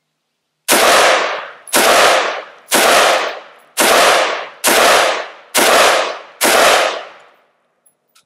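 Custom-built AR-15 rifle fired seven times in steady semi-automatic succession, about one shot a second, each shot trailing off in a long echo. It is the rifle's first function test, and each round cycles: the gun works.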